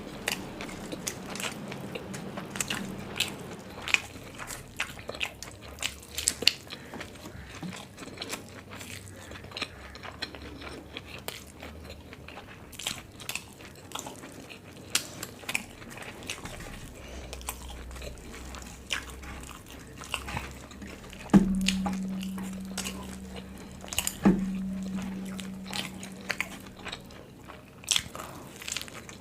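Close-up eating sounds: biting and chewing paratha and masala chaap, with wet mouth clicks and crackles. About two-thirds of the way in come two sharp knocks about three seconds apart, each followed by a low ringing tone lasting a few seconds.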